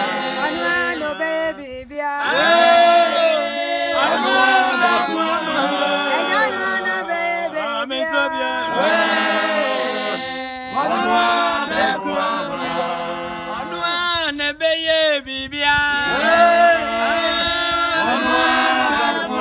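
A small mixed choir of men and women singing a song in Akan together in harmony, a cappella, in long sustained phrases.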